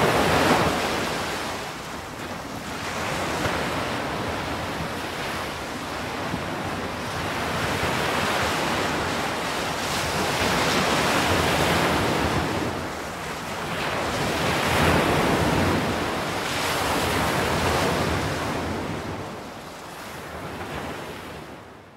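Sea surf: waves breaking and washing in, swelling and ebbing every few seconds, fading out near the end.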